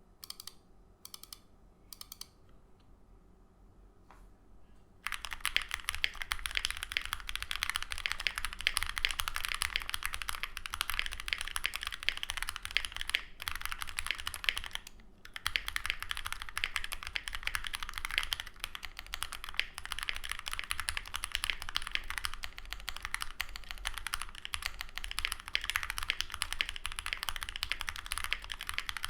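Typing on a CreateKeebs Thera 75 mechanical keyboard with lubed 43 Studio OPBlack linear switches on a POM plate and GMK keycaps. A few single keystrokes come first, then fast continuous typing from about five seconds in, with a brief pause about halfway.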